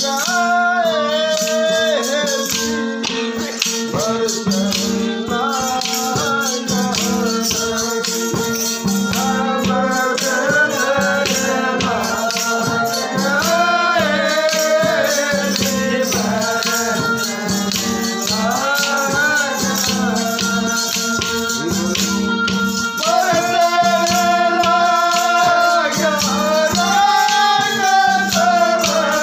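A man singing a devotional bhajan in long, bending phrases over the steady drone of a plucked tambura. Wooden kartal clappers click rapidly throughout.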